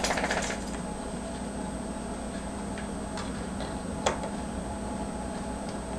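A felt-tip marker scratches a short mark against a metal ruler, then a quiet room with a few faint ticks and one sharper click about four seconds in as the ruler and marker are set down on the table.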